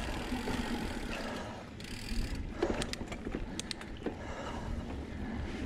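2019 Santa Cruz Blur C S full-suspension mountain bike riding a root-strewn dirt singletrack: tyres rumbling over the dirt, with the bike rattling and a run of sharp clicks about two and a half to four seconds in as it goes over roots.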